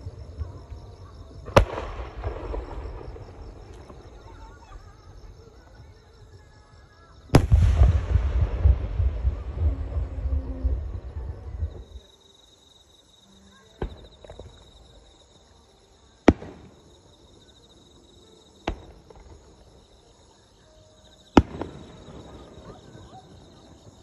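Aerial firework shells going off. Two loud booms each trail into a rolling rumble, the second followed by several seconds of heavy low rumble. Then come four sharp single bangs a couple of seconds apart.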